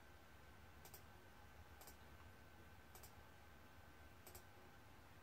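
Near silence: room tone with faint, sharp clicks about once a second, a pair of them near the end, from a laptop being operated.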